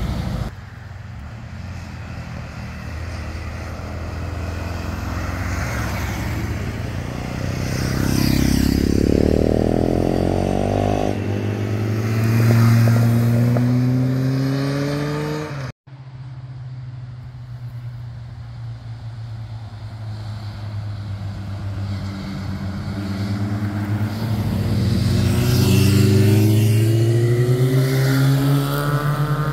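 Several motorcycles riding past one after another. Their engine notes climb in pitch as they accelerate out of the bend and then fade. The sound cuts out for a moment about halfway, and near the end a Honda CBR sportbike's engine note rises sharply as it accelerates past.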